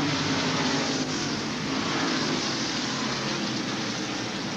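A pack of NASCAR Winston Cup stock cars with V8 engines, all at full throttle together as the field accelerates on a green-flag restart. It is a dense, steady engine noise with a faint rise in pitch.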